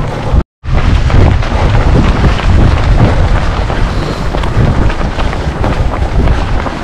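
Wind buffeting the microphone: a loud, gusting rumble, cut off for a split second about half a second in.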